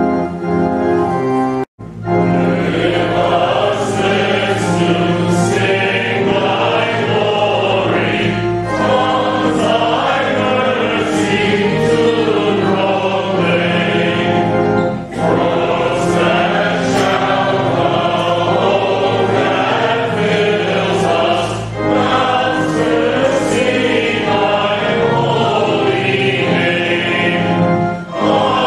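A hymn sung by a church congregation over sustained instrumental accompaniment, in phrases of several seconds with brief pauses between them.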